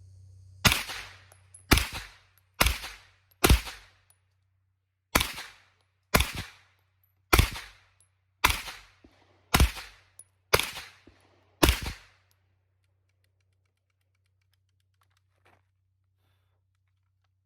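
Eleven shots from a Palmetto State Armory AR-15-pattern 9mm carbine, fired semi-automatically at a steady pace of about one a second, with a slightly longer pause after the fourth shot.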